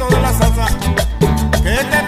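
Upbeat Latin background music with a steady beat and percussion.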